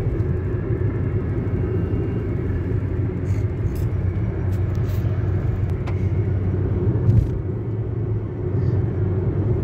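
Car in motion heard from inside the cabin: a steady low rumble of engine and tyre road noise. A brief thump about seven seconds in.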